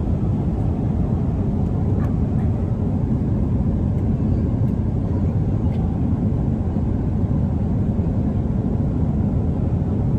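Airliner cabin noise: a steady low rumble of engines and rushing air, with a few faint clicks.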